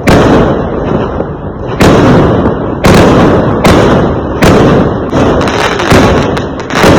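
Fireworks exploding: a run of about eight loud bangs, roughly one a second, each heavy in the low end and fading away before the next goes off.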